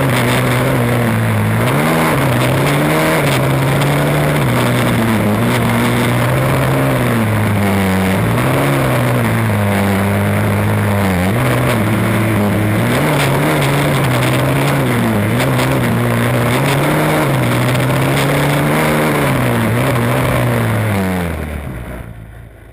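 Formula Student combustion race car's engine heard from the onboard camera, revving up and down repeatedly, its pitch rising and falling every second or two. The sound fades out near the end.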